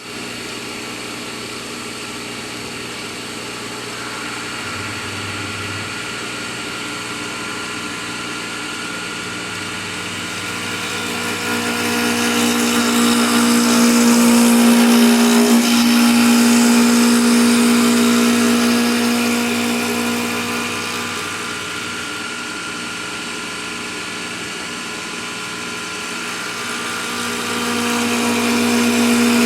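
CNC wood lathe running: a steady motor hum with a pitched tone. A rushing noise swells and grows louder in the middle, fades back, then rises again near the end.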